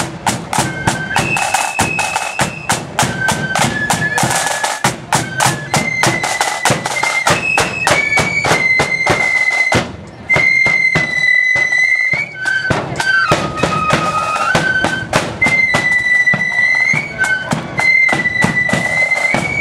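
Marching flute band playing: a shrill flute melody over rapid side-drum beats and rolls. The music dips briefly about ten seconds in, then carries on.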